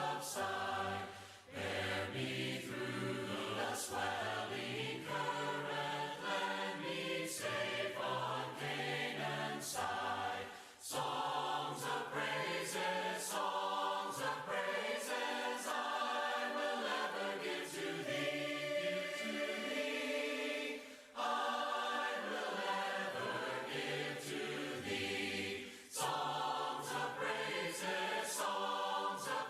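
A congregation singing a hymn a cappella, many voices together, line by line with short breaks for breath between phrases.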